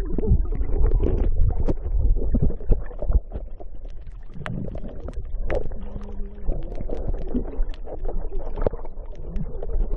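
Water heard through a waterproof phone's microphone held under the sea: a strong low rumble with gurgling and many small knocks and clicks.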